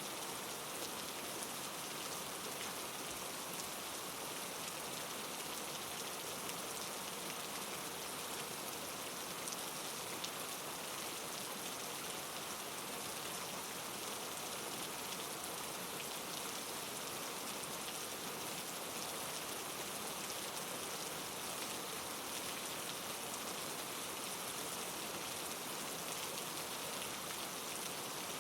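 Steady rain falling: an even hiss with scattered drops, holding at one level throughout.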